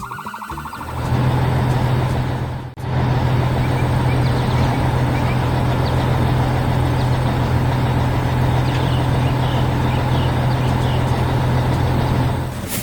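Heavy construction-vehicle engine running steadily with a low, even rumble. It comes up about a second in, breaks off briefly near three seconds, then runs on and cuts off at the end, with faint bird chirps above it.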